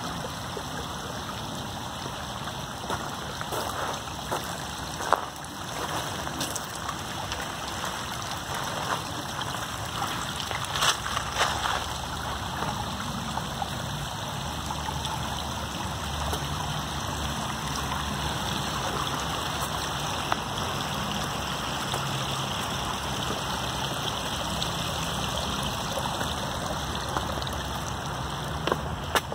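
Steady rush of flowing water, with a few short sharp knocks about five and eleven seconds in.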